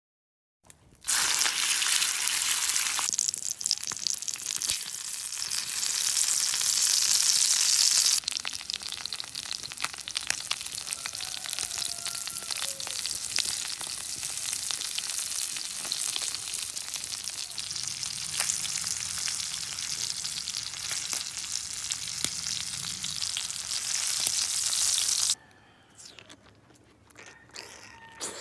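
Food sizzling on a hot black stone slab over a wood fire: a whole octopus being grilled and brushed with sauce, giving a dense, steady hiss that starts about a second in and cuts off a few seconds before the end.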